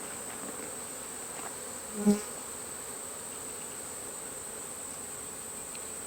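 Honeybees buzzing steadily around an opened hive, stirred up by the inspection, with one brief louder buzz about two seconds in.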